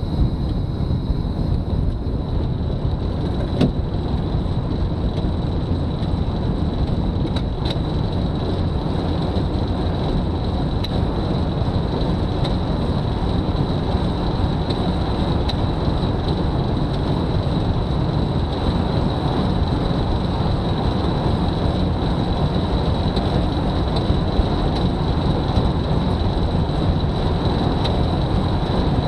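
Velomobile rolling fast on asphalt: a steady rush of tyre and wind noise through its shell, with a thin high whine running throughout and a few faint clicks.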